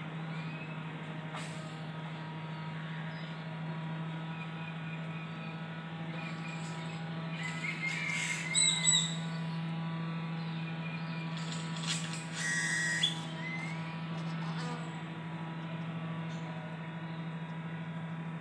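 Steady low buzzing hum of a Melipona beecheii stingless bee colony at its hive entrance. Short bird chirps sound over it, with two louder bird squawks in the middle.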